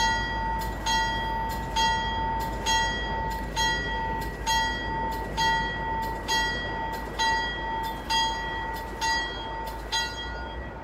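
Commuter train's warning bell ringing steadily at about one strike a second as the train rolls into the station, over the low rumble of the train; the ringing stops near the end.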